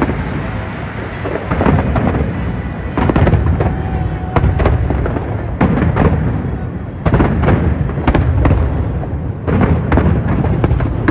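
Fireworks going off in rapid volleys: repeated sharp bangs with rolling, echoing booms between them.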